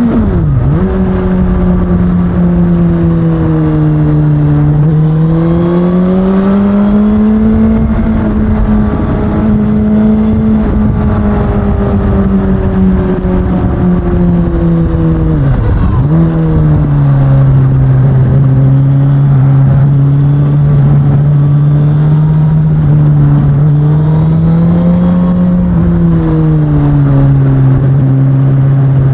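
2019 Suzuki Katana's 999 cc inline-four engine on its stock exhaust, running under way with its pitch rising and falling gently with the throttle. Twice, just after the start and about halfway through, the pitch dips sharply for a moment as at a gear change and comes back lower.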